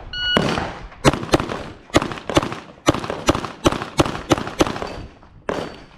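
An electronic shot-timer beep, then a rapid string of Glock pistol shots, about a dozen sharp reports over roughly four seconds.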